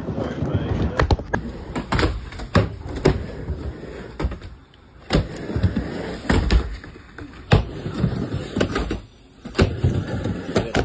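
Skateboards riding a wooden mini ramp: wheels rumbling as they roll back and forth, with repeated sharp clacks and knocks as boards and trucks strike the ramp surface.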